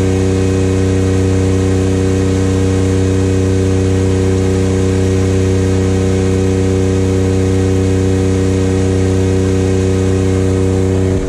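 An engine running steadily at one constant speed, with a strong, even hum and its overtones and no welding-arc crackle.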